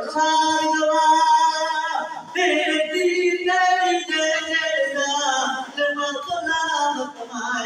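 A man's voice singing mourning verses in a melodic chant, holding long notes that bend up and down, with short breaths between phrases.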